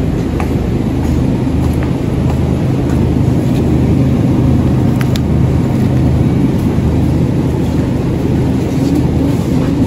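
A steady low mechanical rumble with a droning hum, unchanging throughout, with a few faint clicks.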